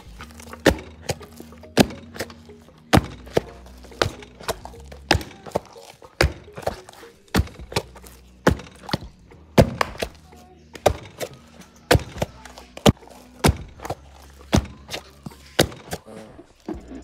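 Wooden pestle pounding fufu dough in a wooden mortar: a steady series of dull thuds, about two a second.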